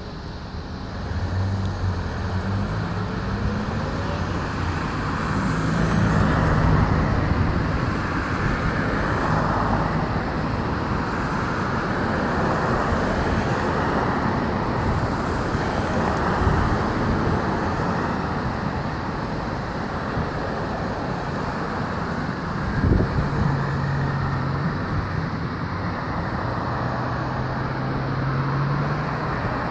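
Road traffic: cars passing in slow swells over the low hum of engines, with a single knock about three-quarters of the way through.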